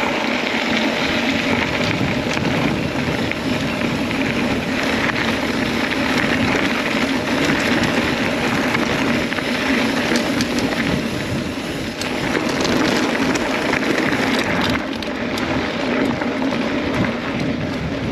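Mountain bike rolling fast along a dirt trail: wind rushing over the microphone and tyres rumbling on the ground, with many small rattles and knocks from the bike over the rough surface.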